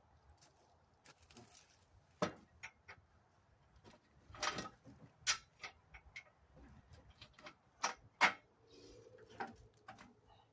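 Go-kart parts and hand tools being handled during assembly: scattered sharp clicks and knocks at irregular intervals.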